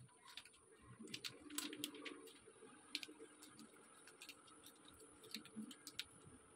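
Near silence with faint scattered clicks and light rustling of small plastic sachets of sweet soy sauce being handled and squeezed out; the loudest rustle comes about a second and a half in.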